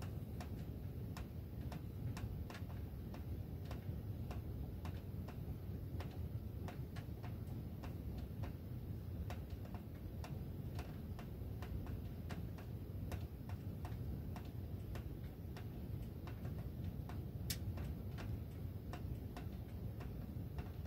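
Sheet-metal HVAC ductwork ticking irregularly, a few sharp ticks a second with one louder one late on, over a steady low rumble.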